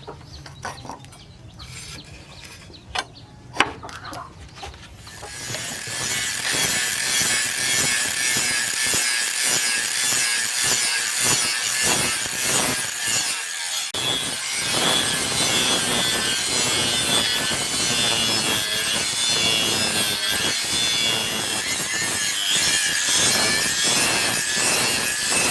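Sharp knocks, then about five seconds in a steady grinding of steel starts, with a constant high whine and no pauses, as a knife blank cut from a tractor disc is shaped.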